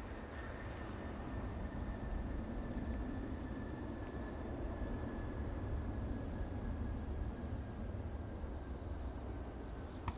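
Distant jet airliner engines running as the plane rolls away down the runway: a steady low rumble under a thin high whine that slowly drops in pitch. A short click near the end.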